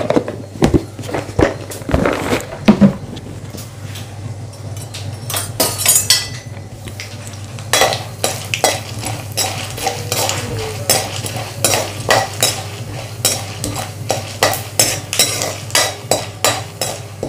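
Steel ladle stirring peanuts and dal frying in coconut oil in a metal kadai, with repeated clinks and scrapes against the pan over a low sizzle. The stirring clinks come thicker from about halfway through.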